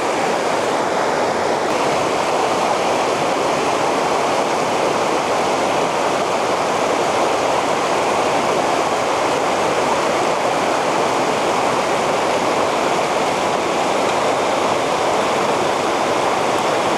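River water rushing steadily, a constant even roar of flowing current.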